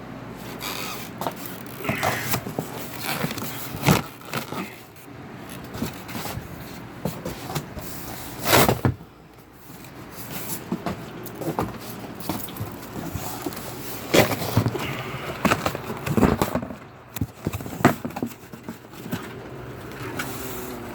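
Cardboard and styrofoam packing scraping, creaking and rustling as a heavy inverter is worked out of its box, with irregular knocks and a few louder thumps.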